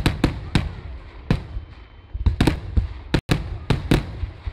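Festival fireworks going off: an irregular series of about a dozen sharp, loud bangs, some coming in quick clusters, each trailed by a low rumble.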